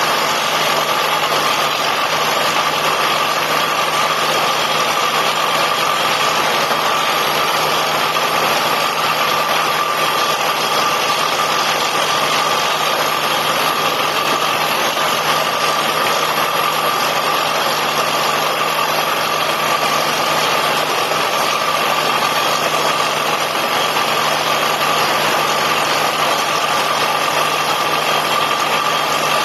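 Borewell drilling rig running steadily: a constant engine and machinery drone with a steady high whine over it.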